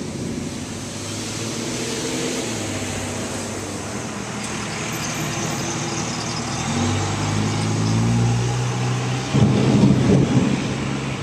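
A motor vehicle's engine running through steady rain hiss, its pitch stepping up over several seconds as it draws nearer, with a louder rough rumble breaking in about nine seconds in.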